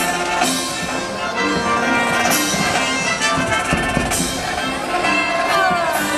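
Loud music with drums and percussion, broken by a few sharp bangs of fireworks bursting.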